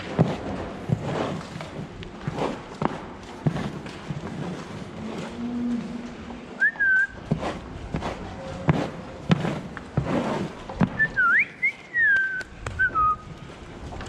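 Dairy cows' hooves knocking and clattering irregularly on a slatted concrete barn floor, with a person whistling short sliding whistles to drive the cows, one about halfway through and several in quick succession near the end.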